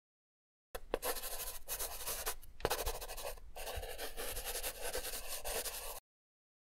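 Pencil scribbling on paper: a scratchy writing sound that starts about a second in, breaks off briefly a few times and stops suddenly near the end.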